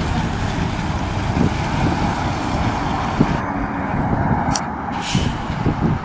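Engine of a heavy three-axle fire truck running as it drives past close by and pulls away.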